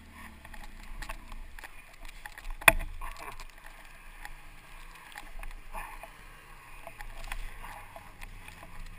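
Snowmobile stuck nose-deep in powder, its engine idling low under scraping and crunching of snow being cleared by hand, with a sharp knock about three seconds in.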